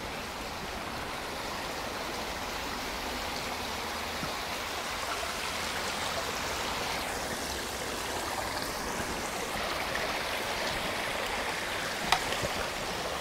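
Shallow brook babbling and rippling over stones, a steady rush of running water. A single sharp knock sounds near the end.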